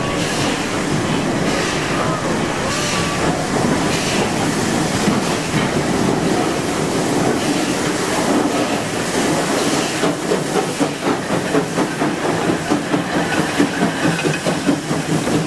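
Steam locomotive coming out of a tunnel and passing close by: a steady running noise that turns into a rapid, regular beat, loudest in the last few seconds as the engine goes past.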